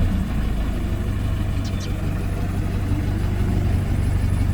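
Diesel engine of heavy farm machinery running steadily with a deep low rumble. Two brief high squeaks come a little under two seconds in.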